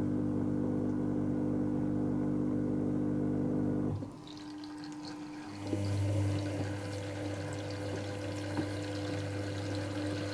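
Dyson Contrarotator CR01 washing machine: a steady motor hum cuts off about four seconds in. After a short pause a low, steady electrical hum starts and water rushes through the machine.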